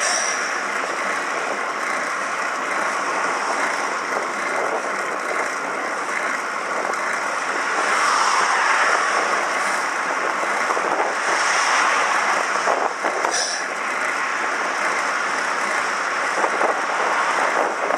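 Road traffic noise, steady and fairly loud, with vehicles going by. It swells about eight seconds in and again around twelve seconds.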